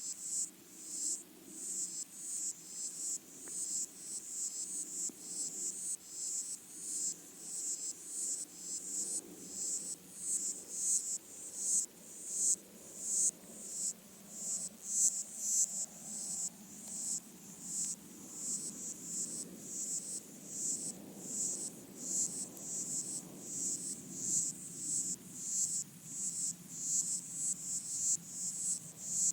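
Chorus of pygmy water boatmen (Micronecta) stridulating underwater, picked up by hydrophones: high rasping chirps about twice a second, each swelling and then cutting off, over a faint low murmur.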